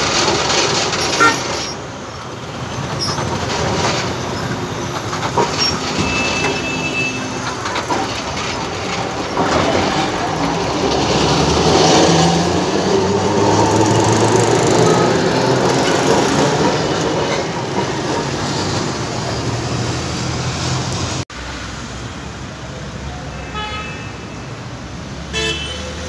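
Alexandria Ramleh-line tram pulling out of the station: the motors run and the wheels rumble on the rails, the sound building and then fading as the tram moves off. Afterwards, quieter street traffic with short horn toots near the end.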